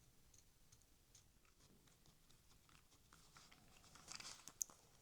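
Faint, scattered small clicks and light scraping of a model locomotive's small parts and screws being handled on the bench. They grow busier near the end, with one sharper click.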